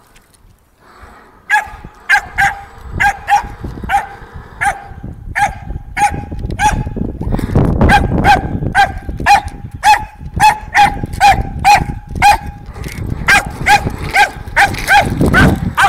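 Small white terrier barking over and over, about two sharp barks a second, starting about a second and a half in, as it chases a radio-controlled boat along the dock edge.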